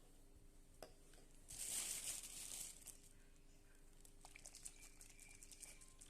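Quiet room with a single faint click, then a brief rustle a second and a half in that lasts about a second. A run of faint quick ticks follows near the end.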